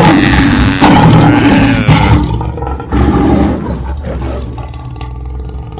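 Lion roaring repeatedly, as a cartoon sound effect: loudest over the first two seconds, with another roar about three seconds in, then fading away.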